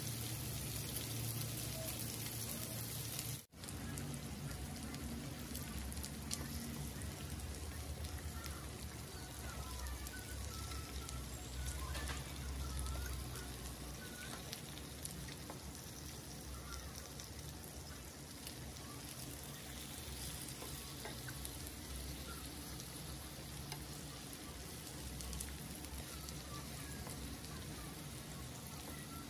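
Marinated meat sizzling on an electric grill pan, a steady frying hiss.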